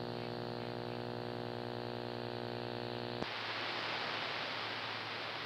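Steady mains hum with many overtones on the CB radio audio, a sign of failing filter capacitors in an old sweep-tube amplifier, which the operator takes for dried-out electrolytics. About three seconds in, a click cuts the hum off and steady radio static hiss takes over.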